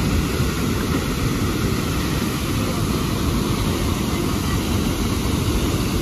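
Steady rushing of a waterfall pouring into a plunge pool: a dense, even noise, heaviest low down, that does not let up.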